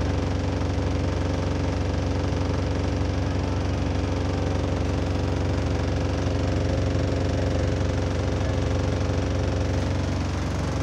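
SLS-class bus's diesel engine idling steadily with a loud rattle, heard from inside the passenger saloon. Its exhaust is described as slightly burst.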